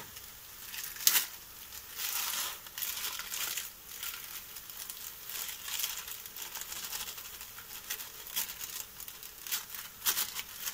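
Thin plastic bag crinkling as dry pearl barley is shaken out of it into a frying pan, with a few sharp crackles about a second in and again near the end.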